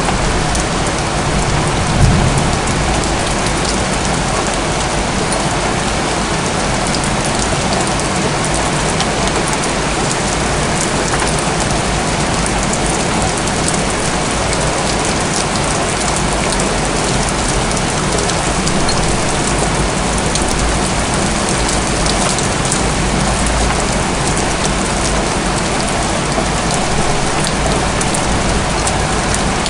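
Steady rain falling on rooftops, with the sharp ticks of single drops striking close by. There is one short low thump about two seconds in.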